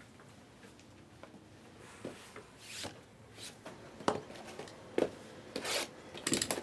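Cardboard trading-card hobby box being handled and opened by hand: a run of brief scrapes and rubs of fingers on cardboard, starting about two seconds in and coming closer together near the end.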